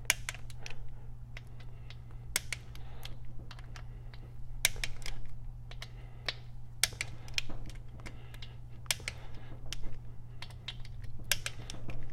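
Hand tools on the engine: irregular sharp metallic clicks from a click-type torque wrench and socket as the cam plate bolts are rechecked at 120 inch-pounds, over a steady low hum.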